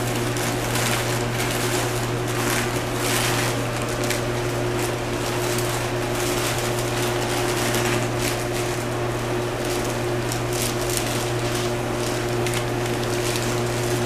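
Steady hum of a paint booth's ventilation fan, with a cloth swishing in short, irregular strokes as it is wiped over the primed fiberglass body and the plastic masking.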